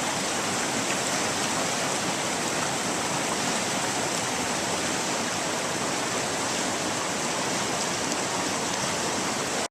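River water rushing steadily, a constant even hiss of flowing current.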